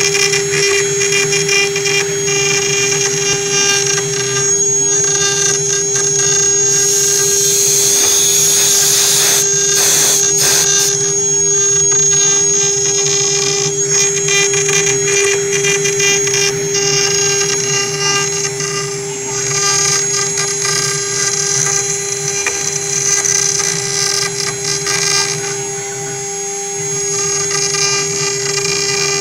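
CNC router spindle running at a steady whine while its bit cuts a relief carving into wood, with the rasp of the cut rising and falling as the bit moves through the work. The cutting noise grows louder for a few seconds about a quarter of the way in.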